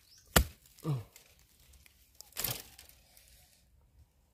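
A digging spade chopping into soil and roots to cut out a bamboo shoot. There is one sharp strike, then a short crunching scrape about two seconds in.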